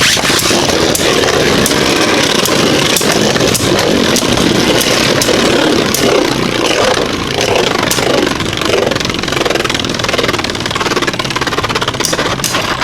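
Two Beyblade Burst spinning tops whirring and grinding against each other in a plastic stadium, with frequent sharp clicks as they collide.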